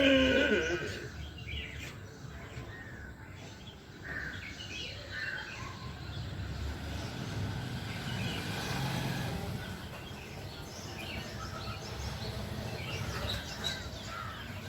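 A person doing Ujjayi pranayama: a long, slow inhale drawn through a narrowed throat in the middle, with the breath held after it. Birds chirp faintly in the background.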